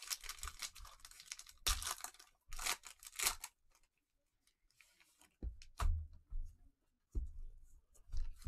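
Foil wrapper of an Obsidian basketball card pack crinkling and tearing as it is opened, for about three and a half seconds. Then quieter handling of the cards, with a few dull thumps as the stack is set down on the table.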